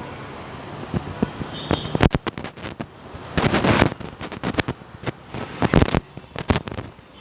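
Firecrackers going off in a quick, irregular run of sharp bangs and cracks, with a longer crackling rush about halfway through.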